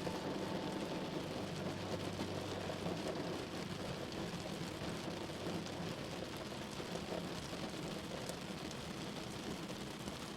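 Heavy rain falling in a steady hiss that slowly grows quieter, with the last held notes of soft music dying away at the start.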